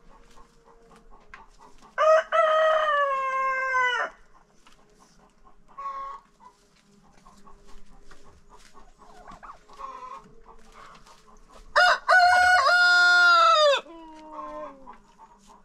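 Two rooster crows, about ten seconds apart. Each is a brief first note and then a long held cock-a-doodle-doo that falls away at the end. Chickens cluck softly in between.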